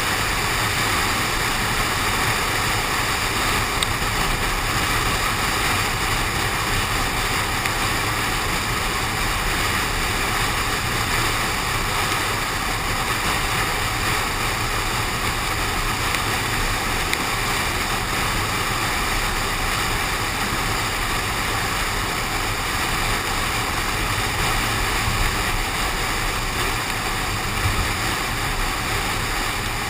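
Steady rushing noise of wind and rain spray on a GoPro suction-cupped to a car window in the rain, with the car's road noise underneath.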